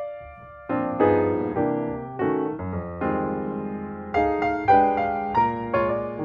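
Background piano music, a run of notes and chords that drops away briefly about half a second in and then carries on.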